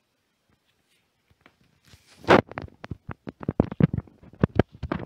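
A rapid, irregular run of clicks and knocks, like objects being handled, starting about two seconds in after near silence.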